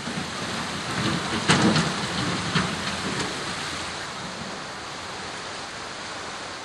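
Steady rush of floodwater, with a few sharp knocks in the first couple of seconds.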